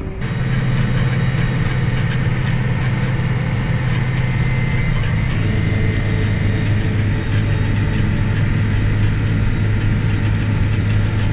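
Farm tractor's engine running steadily, heard from inside the cab as a continuous low drone; its pitch drops slightly about five seconds in.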